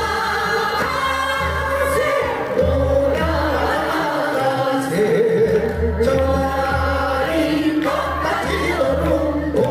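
A group of singers singing a Korean folk song (minyo) together in chorus, over an amplified accompaniment with a steady low pulsing beat.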